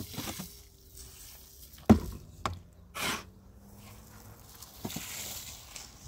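Handling noises: sharp knocks about two seconds in, again half a second later and near five seconds, with a short rush of hiss-like noise around three seconds in.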